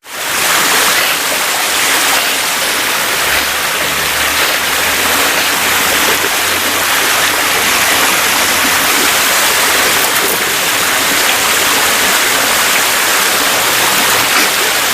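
A loud, steady rushing hiss that starts abruptly and holds even throughout.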